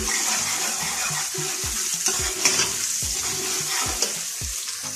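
Onions, garlic, ginger and green chillies sizzling in hot oil in an aluminium pressure cooker, with a ladle stirring and scraping against the bottom of the pot.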